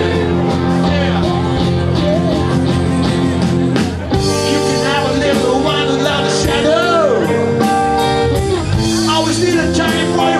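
A rock band playing live, full band with guitar.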